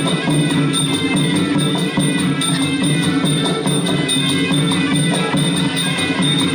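Traditional Kun Khmer fight music playing without a break, with drums and percussion keeping a steady beat under a held melody.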